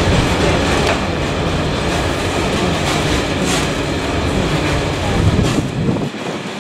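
A freight train's open box wagons rolling past, wheels clattering over the rail joints over a steady rumble. The deepest part of the rumble falls away near the end.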